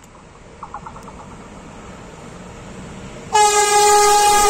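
Horn of an InRail E190 (Siemens Taurus) electric locomotive sounding one long, loud blast about three seconds in, over the building rumble of the approaching train.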